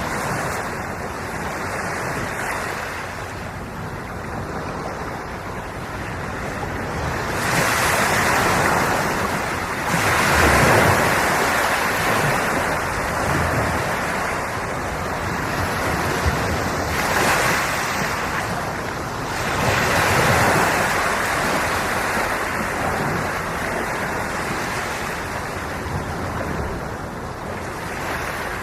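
Sea waves breaking and washing on the shore, the surf swelling louder every few seconds over a steady wash, with wind buffeting the microphone.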